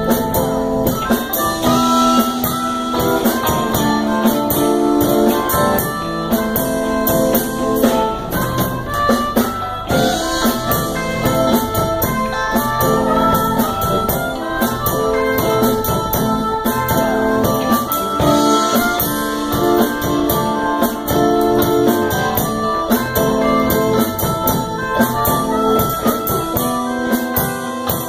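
A live blues-rock band playing an instrumental passage: electric guitars and drum kit, with a harmonica played into the vocal microphone carrying the lead.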